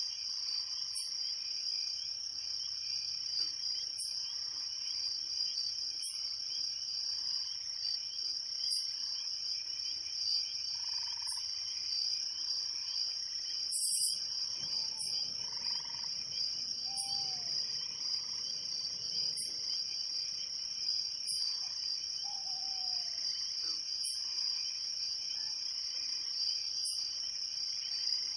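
A night chorus of crickets: a steady high, shrill trill with short, higher chirps repeating about every two seconds. A few brief falling calls are heard over it, and there is a single short click about halfway through.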